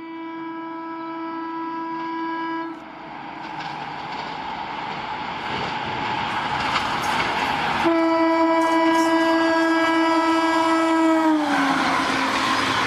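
WAP-7 electric locomotive's horn sounding twice as the express approaches at about 130 km/h. There is one held blast of almost three seconds, then a second held blast about eight seconds in, whose pitch drops as the locomotive passes. Under the horn is the growing rush of the oncoming train, which ends in the loud noise of the coaches speeding past.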